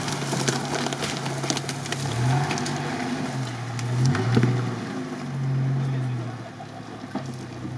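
Mitsubishi Pajero II's engine revving in repeated surges of about a second each as the 4x4 pulls away through forest mud, with scattered sharp cracks and clicks from the track.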